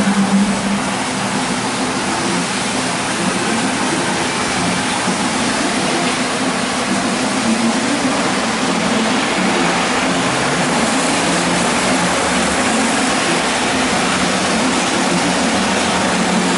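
Model trains running on the layout: a steady rumble with a wavering low hum underneath.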